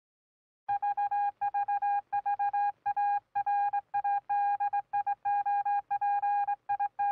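Morse code beeping: one mid-pitched tone keyed on and off in a rapid, uneven string of short and long beeps, starting just under a second in.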